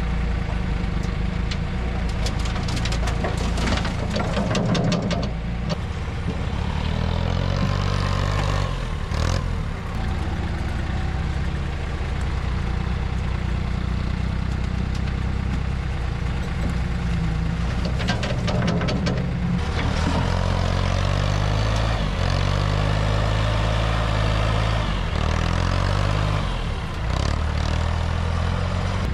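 Yanmar C25R tracked dumper's three-cylinder diesel engine running, its pitch stepping up and down as the engine speed changes. There are bursts of clattering a couple of seconds in and again about two-thirds of the way through.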